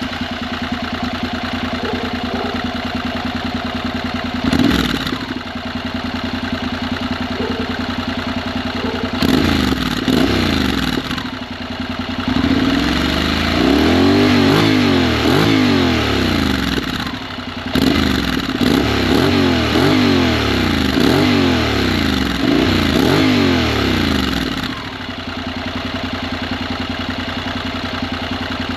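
Honda NC750X parallel-twin engine through a MIVV Suono aftermarket muffler, idling just after starting, with one throttle blip about five seconds in. From about nine seconds it is revved repeatedly in quick rising-and-falling blips, then settles back to a steady idle near the end.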